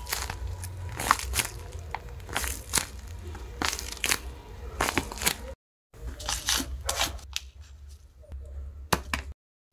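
Paper crinkling and rustling as a handmade paper blind bag is unfolded and squeezed by hand, in irregular crisp crackles. The sound cuts out abruptly to silence about halfway through and again just before the end.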